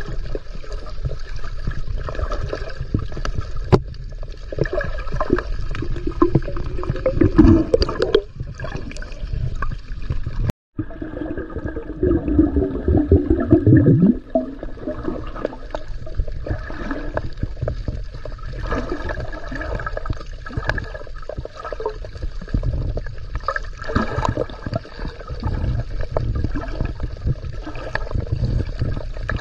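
Water sloshing and gurgling around a swimmer's camera, with louder gurgling surges about seven seconds in and again from about twelve to fourteen seconds. The sound cuts out for an instant a little past ten seconds.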